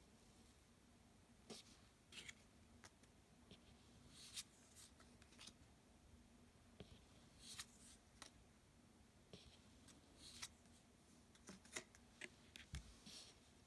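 Faint papery swishes and soft taps of stiff tarot-style cards being slid off a deck and laid down, in small clusters every few seconds.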